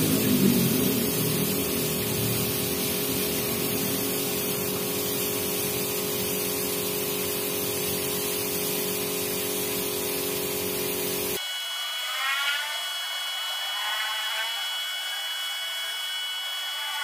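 Compressed-air spray gun hissing steadily as it sprays epoxy primer, with a steady hum beneath. About eleven seconds in the spraying cuts off abruptly and background music takes over.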